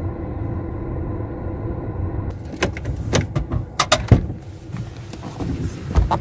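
Steady engine and road hum inside a Hyundai car's cabin, then a run of sharp clicks and knocks with a heavy thump about four seconds in and another near the end, as the car stops and the front passenger door is opened.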